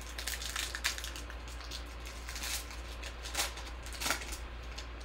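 Foil wrapper of a Panini Prizm basketball card pack crinkling and tearing as it is ripped open by hand, in a series of short crackly rustles.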